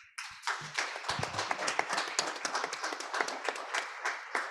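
Audience applauding: many sharp claps over an even patter, thinning out near the end.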